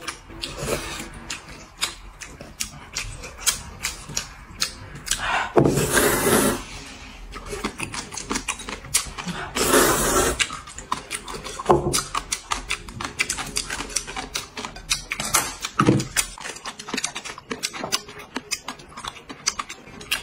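Two people slurping hot-and-sour sweet potato noodles and their broth from bowls, with long noisy slurps about five and ten seconds in and many short smacks and clicks in between.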